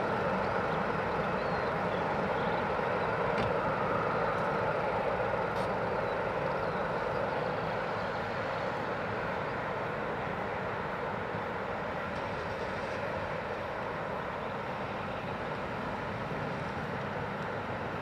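Boeing 737-800's CFM56-7B turbofan engines running at low taxi thrust as the airliner turns and lines up for takeoff. It is a steady jet hum and rush that slowly grows quieter over the second half.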